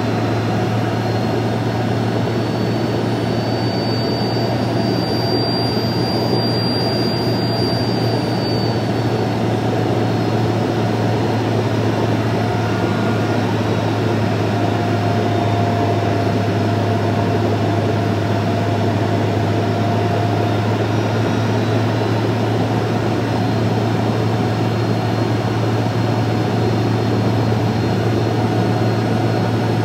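Steady cabin noise of a Cirrus Vision Jet in flight: its single Williams FJ33 turbofan and the rush of air make a constant drone with a strong low hum. A faint high whine comes and goes over it.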